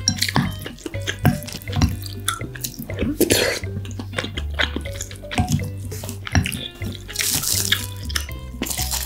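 Close-miked wet eating sounds of marinated raw crab and rice: quick smacks and squelchy chewing, with two longer slurps, one about three seconds in and one near the end.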